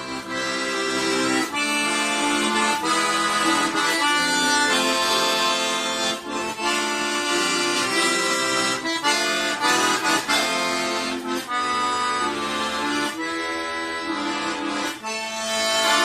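Button accordion playing a melody over held chords, the chords changing every second or so with short breaths between phrases.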